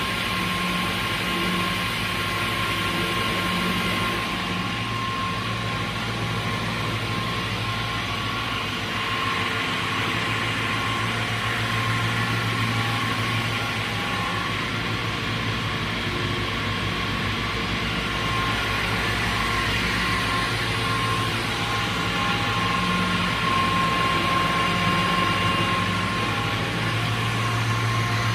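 Brodpol WP200 two-shaft multi-rip saw with twin 55 kW motors running steadily: a low hum with a steady high whine over it.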